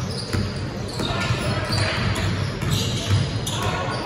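A basketball being bounced on a gym floor a few times, with overlapping voices of players and onlookers echoing in the large hall.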